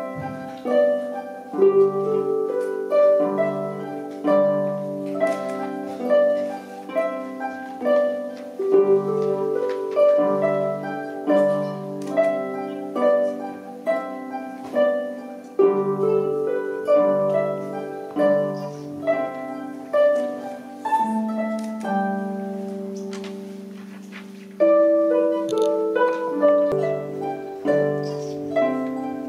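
Ensemble of concert harps playing together: plucked notes ringing and fading over a repeating low figure. About three-quarters through, a chord is held and dies away, then the harps come back in louder.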